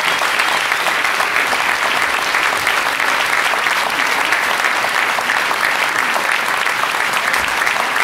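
Large audience applauding steadily, a dense continuous patter of many hands clapping.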